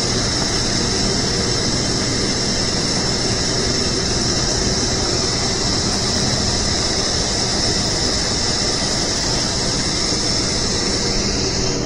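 Steady, even background noise of a large exhibition hall, heard through an action camera, with a strong hiss that drops away abruptly at the very end.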